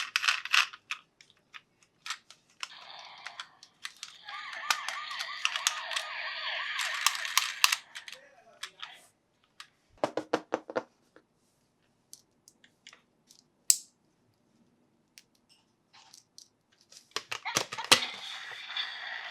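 A Paw Patrol toy vehicle's electronic siren sound effect plays from its small speaker for a few seconds and comes back near the end. Clicks and crinkles of plastic toys being handled fill the gaps.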